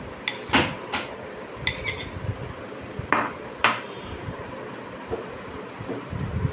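A metal spoon and a stainless-steel mesh strainer clinking against a pot, about five sharp clinks in the first four seconds, some with a brief ring, as jackfruit pulp is pressed through the strainer to draw off its juice.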